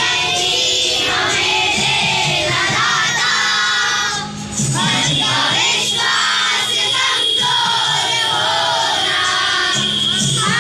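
A large group of children singing a prayer together in unison, with a short pause for breath about four seconds in.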